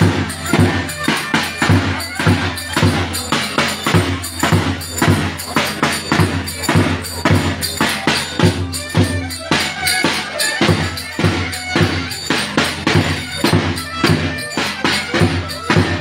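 Lively Turkish folk dance music (oyun havası) with a steady, fast drum beat of about three strokes a second under a melody.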